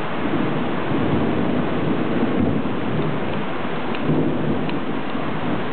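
Thunderstorm: a low, drawn-out rumble of thunder over steady rain.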